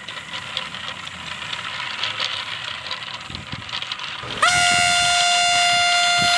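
A steady rattle of a model train running, then about four seconds in a train horn sounds: one long, loud, steady blast with a short rising start.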